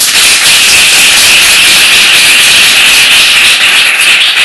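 An audience applauding, loud and steady, beginning to thin out near the end.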